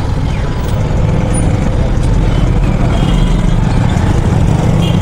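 Steady low rumble of a motorcycle riding in slow, dense city traffic, heard from the rider's seat: the bike's engine and the surrounding motor traffic blended together.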